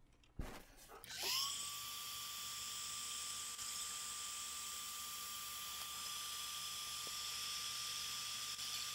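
Black & Decker heat gun switched on with a click, its fan motor spinning up in about a second to a steady high whine with a hiss of blown hot air, shrinking adhesive heat-shrink tubing over a cable splice.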